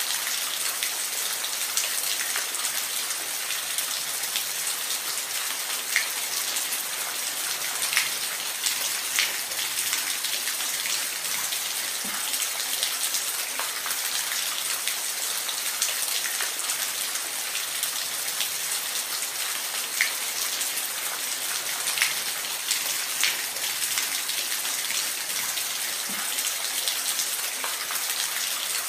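Waterfall: a steady, hissing rush of falling water, sprinkled throughout with small splashes and droplet ticks.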